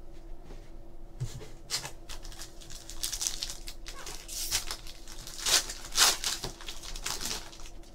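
Foil wrapper of a Topps Chrome trading-card pack being torn open and crinkled by hand: a run of crackling rips, loudest about five and six seconds in.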